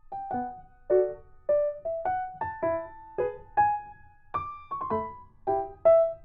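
Background piano music: single notes and chords struck about twice a second, each fading out after it is struck.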